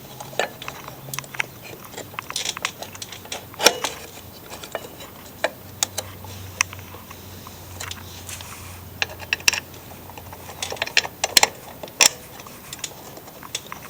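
Irregular metallic clicks and knocks of a bolt and pulley being worked into place on a mower deck by hand, with louder knocks about three and a half seconds in and near the end.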